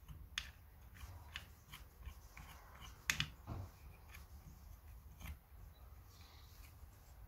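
Scattered light clicks and taps of chainsaw parts and hand tools being handled while the saw is taken apart, the sharpest about three seconds in.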